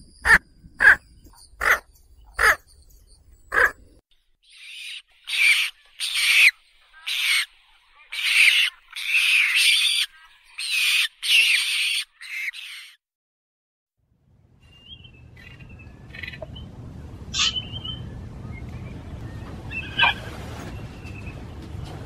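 Squacco heron calling: a quick run of short sharp calls, then a series of about ten harsh rasping croaks. After a silent gap of about a second and a half, a different recording begins, with steady low background noise and a few scattered short calls of a Chinese egret.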